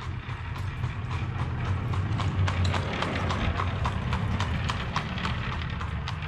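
Hooves of a horse pulling an Amish buggy clip-clopping on the road at a quick trot, about three to four beats a second. The beats grow louder toward the middle as it passes and ease off near the end, over a steady low rumble.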